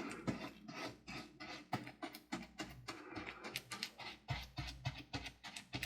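Short, irregular scraping strokes of a tool pushing a gritty sand-and-resin mixture across a canvas board, a few strokes a second.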